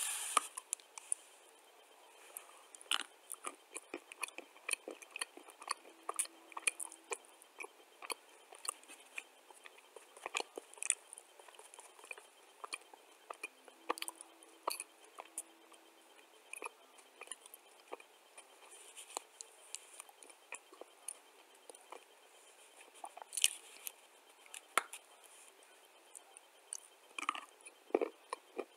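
Person biting and chewing chunks of dry clay close to the microphone: a steady run of irregular crisp crunches and crackles.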